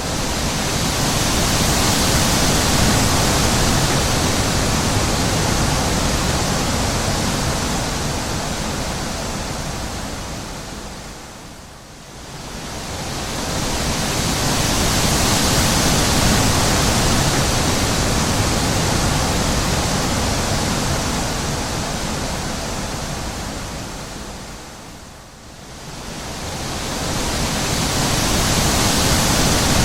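Wind blowing in long gusts, a loud rushing that swells and fades away, sinking low twice before building up again.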